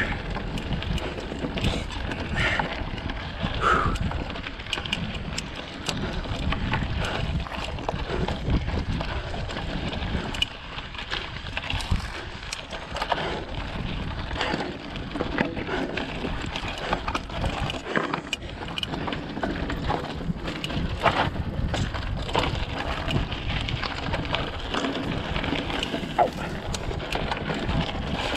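Mountain bike ridden along a rough dirt singletrack: tyres rolling over dirt and rocks with many short rattles and knocks from the bike, under steady wind noise on the microphone.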